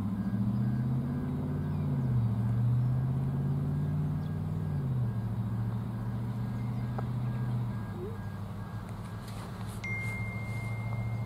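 Diesel locomotive engine running with a low, steady hum whose pitch shifts a few times. A thin, high, steady tone starts suddenly near the end.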